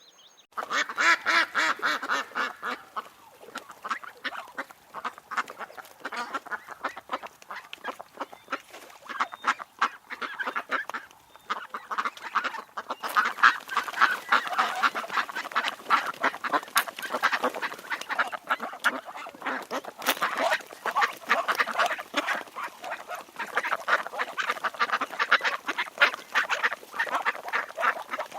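Ducks quacking, many rapid overlapping calls in a steady stream, starting about half a second in.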